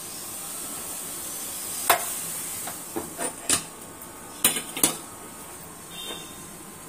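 Steel cooking pots and a utensil clinking and clanking on a gas stove, a series of sharp metal knocks between about two and five seconds in, over a steady hiss from the burners and the boiling tea.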